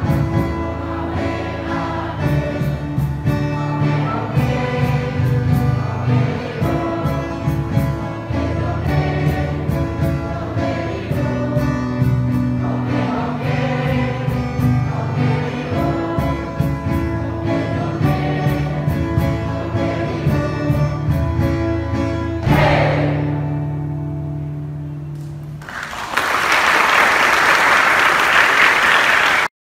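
A school class choir singing in chorus over accompaniment with a steady beat, ending on a held final chord that fades out. Audience applause breaks out a few seconds from the end and cuts off suddenly.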